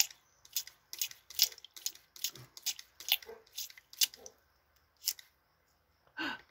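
Ear-irrigation spray bottle being squeezed over and over, each squeeze a short hissing squirt of water through the hose into the ear canal, about two or three a second. The squirts stop about five seconds in.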